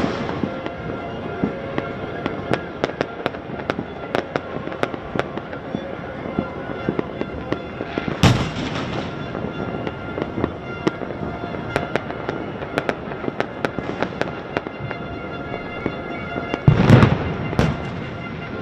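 Fireworks and firecrackers going off all over a city: a dense, constant crackle of small bangs, with two much heavier booms, one about 8 seconds in and one near the end.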